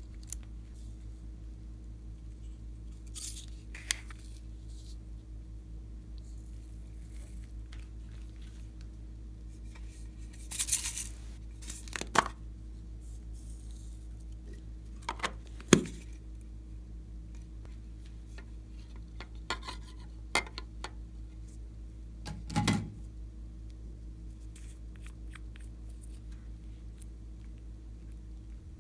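Sparse handling sounds of slime being worked in a tray, over a steady low hum: a few sharp clicks and taps, the loudest about halfway through, and a short rustly, squishing burst a little past a third of the way in.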